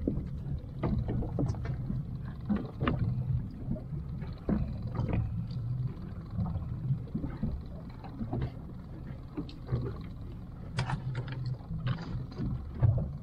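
Small fishing boat's motor running with a steady low hum, with scattered clicks and knocks as a hand line is hauled in over the gunwale.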